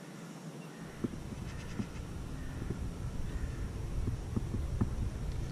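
Wind rumbling on the microphone, with a few faint, scattered clicks and faint distant animal calls.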